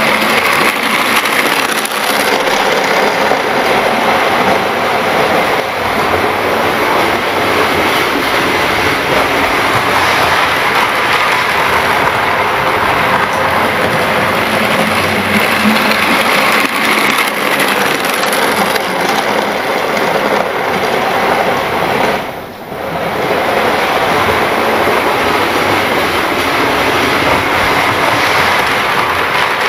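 Model railway train running on the track close by, a steady running noise from its motor and wheels on the rails, briefly dropping in loudness about three quarters of the way through.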